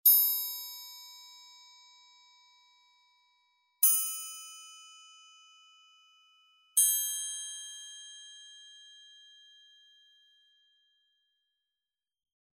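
Three struck bell tones, each a little higher in pitch than the one before, each ringing out and fading over a few seconds. They mark the start of a period of silent meditation.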